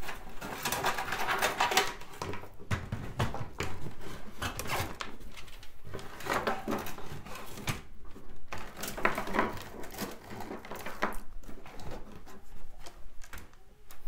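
Irregular knocks, scrapes and rustling from handling PC parts: a power supply's braided cables being slid through a steel computer case and its metal mounting plate being pushed into place against the case.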